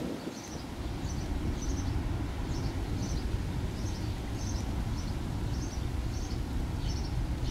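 Steady low rumble with a bird chirping over it, in short high calls repeated about twice a second.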